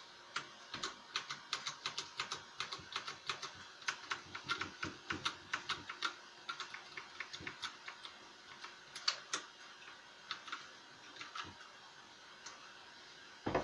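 Keys being pressed on an MK Disco mechanical keyboard with KBTalking Brown tactile switches: a quick run of key clicks that thins to scattered single presses in the second half. One louder thump comes near the end.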